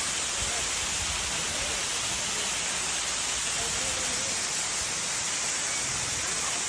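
Sai Yok Noi waterfall: a steady rush of falling water, even in level throughout, with faint voices underneath.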